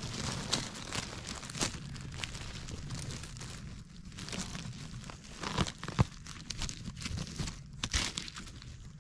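Hand rustling and crackling through dry spruce needles, cones and twigs on the forest floor, with sharp snaps several times, the loudest about six seconds in, as a porcini is worked loose and pulled up from the litter.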